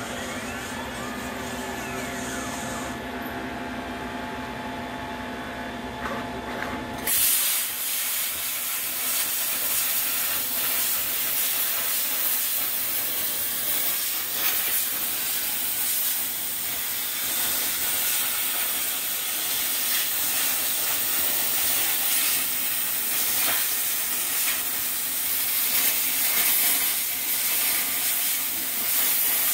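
Steady machine hum with fixed tones. About seven seconds in, a CNC plasma cutter's torch fires and settles into a loud, even hiss as the arc cuts through sheet steel.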